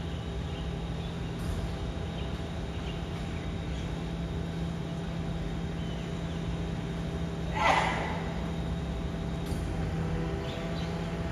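BYD refuse truck standing with a steady machine hum, and about three quarters of the way through a short hiss.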